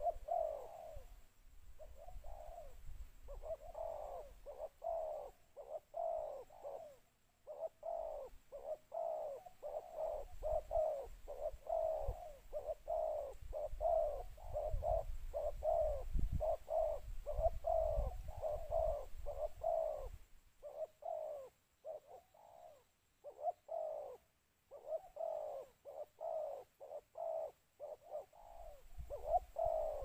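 Spotted doves cooing: a long run of short, low coos, about two to three a second, with a few brief breaks.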